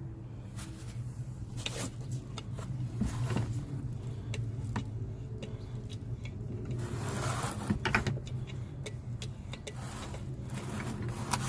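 Scattered light clicks and knocks of driveshaft parts being handled and greased by hand, over a steady low hum, with a brief scrape about seven seconds in.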